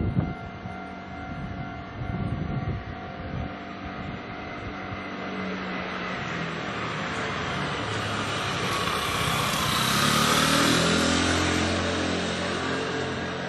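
A Kintetsu electric train passing over a level crossing: its rumble and rush of wheel noise build to a peak about ten seconds in, then ease off. The crossing's warning bell keeps ringing in steady tones. A sharp knock comes right at the start.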